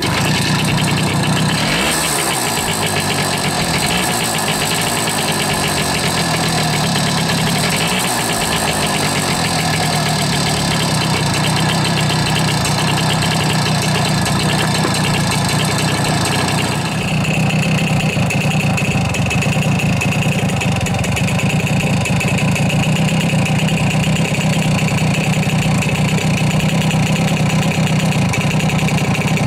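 Romet Ogar 200 moped's Czech-built 50 cc two-stroke engine, just kick-started and running cold. It is revved up and down twice in the first several seconds, then idles steadily.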